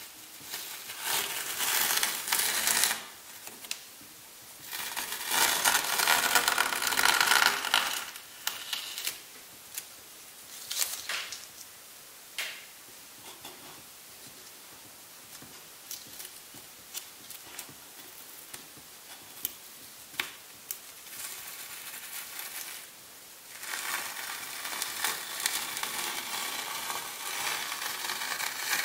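Masking tape being peeled off the edges of a painted canvas: three long stretches of rough tearing and crackling, with scattered short ticks and crinkles between them.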